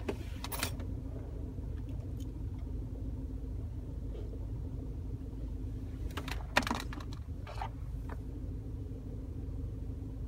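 Steady car-interior rumble with a low hum. A few short clicks and rattles near the start and again about six to eight seconds in come from a puppy mouthing its lead and the metal clip on its collar.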